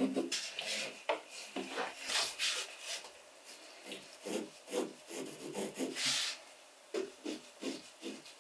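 Pencil scratching on a hardboard panel in a run of short marking strokes, the strongest about two seconds in and again about six seconds in.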